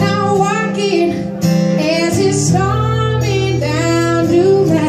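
A woman singing with a wavering, bending pitch over a strummed acoustic guitar.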